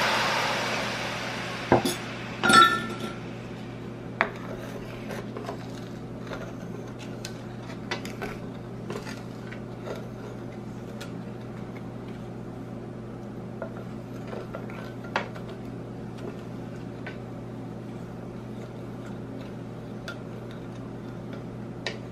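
Lemon juice pouring into a stainless steel skillet of simmering broth, fading out in the first second or so, then two sharp clinks of the glass measuring cup against the pan. After that a wooden spatula stirs the sauce as it reduces, with small scattered taps and scrapes on the pan over a steady low hum.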